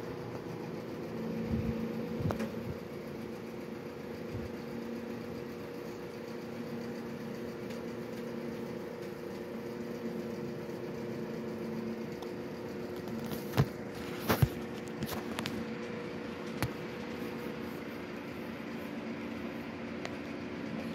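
A steady machine hum, with a few sharp clicks about two-thirds of the way through.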